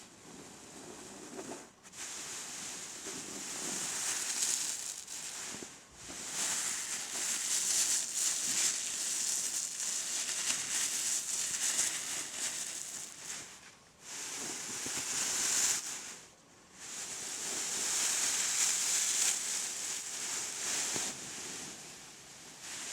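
Bean bag being squeezed and rubbed by hand, a crinkly rustling and crackling in long stretches with a few short pauses.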